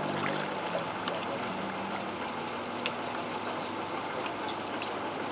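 Water splashing and sloshing as crocodiles snatch and thrash at bait dangled on a line, with scattered small clicks and taps.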